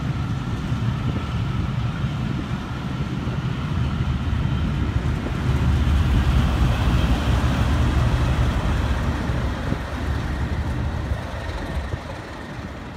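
Railway passenger coaches rolling past close by, their wheels rumbling steadily on the track. The rumble grows louder about halfway through, then fades near the end as the tail of the train moves away.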